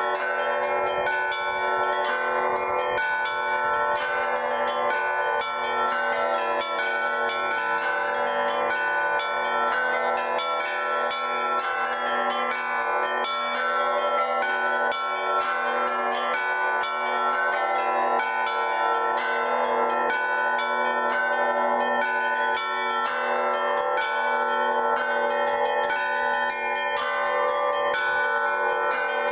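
Russian Orthodox church bells rung in an improvised zvon by a single bell ringer working the clappers. A dense, rapid stream of strikes on the small bells rings over steady, sustained tones from the larger bells, without a pause.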